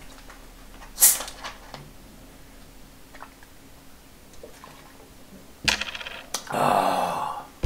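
Plastic cola bottle twisted open with a short fizzing hiss of escaping carbonation about a second in, then quiet while he drinks. Near the end comes a knock as the bottle is put down, followed by a loud breathy "ahh" exhale after gulping the fizzy soda.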